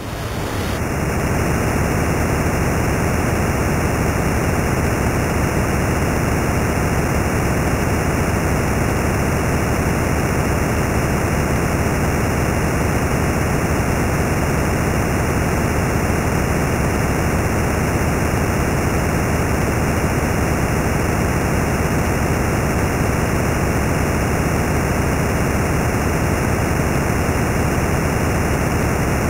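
Loud, steady hiss like static, even and unchanging with no rhythm or separate sounds in it; its tone turns slightly hollower about a second in.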